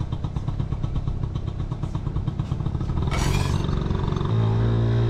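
Honda Motocompo scooter's small two-stroke engine running with a fast, uneven pulse, with a brief rush of noise about three seconds in; near the end the sound settles into a steadier, deeper hum.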